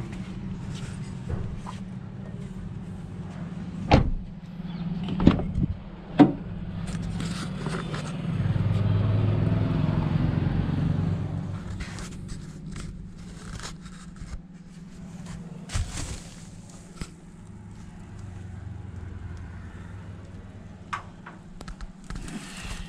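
Knocks, clicks and rustling from handling a new car's interior, with plastic-wrapped seats, over a steady low hum. A few sharp knocks come about four to six seconds in, and a louder swell of noise rises and fades between about eight and eleven seconds.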